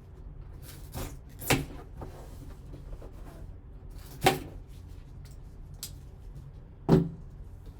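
Handling noise from opening and working through a graded trading-card box: a few separate sharp knocks and taps, the loudest about four and seven seconds in, over a low steady hum.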